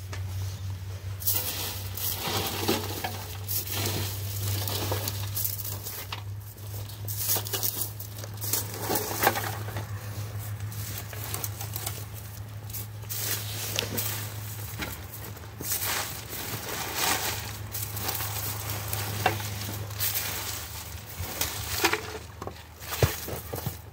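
Irregular clatter, knocks and scrapes of objects being handled, over a low steady hum that stops about fifteen seconds in.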